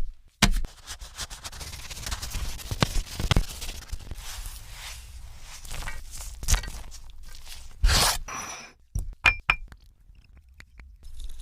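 Food-preparation sounds: irregular scraping with sharp knocks and taps, and a louder scrape about eight seconds in.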